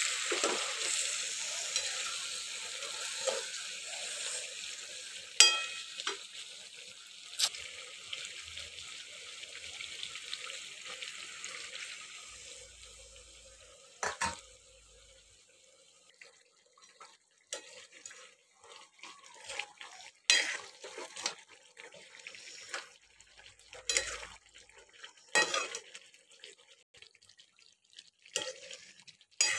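Desi chicken curry sizzling in a metal pot while it is stirred, the sizzle fading away over the first dozen seconds. Sharp knocks and scrapes of the stirring spoon against the pot come every few seconds through the second half.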